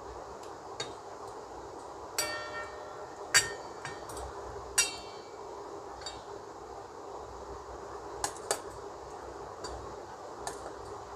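Plastic spoon knocking against a stainless steel tiffin box while spreading paste over fish: about nine irregular sharp clinks, the loudest about a third of the way in, two of them leaving the steel ringing briefly. A faint steady hum lies underneath.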